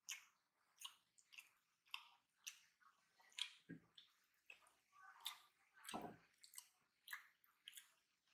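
Close-miked sounds of eating rice by hand: soft, irregular wet squishes and clicks as fingers mash and mix rice on a plate, with chewing. Two deeper thumps come about four and six seconds in.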